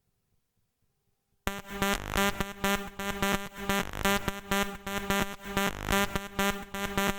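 Near silence, then about a second and a half in a synthesizer siren loop starts: rapid, rhythmic pulsing synth notes with short pitch sweeps.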